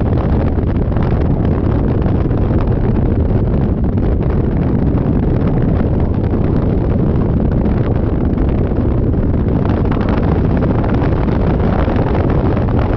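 Loud, steady wind rushing over the microphone on a moving Yamaha Majesty 400 scooter, blending with the ride's engine and road noise.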